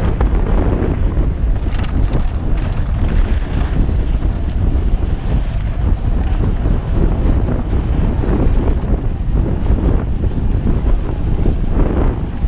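Steady wind buffeting a GoPro's microphone as a mountain bike rides fast over dirt singletrack, with the tyres' rumble and small clicks and rattles from the trail mixed in.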